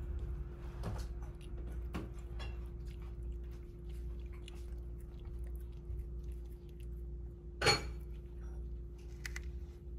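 A cat eating wet food from a ceramic dish: close, wet chewing and licking with many small clicks, and one louder click about three quarters of the way through.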